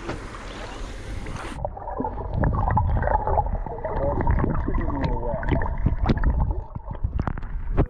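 An even outdoor hiss of wind or moving water, which about a second and a half in gives way to muffled, dull gurgling and sloshing water with many small knocks and clicks.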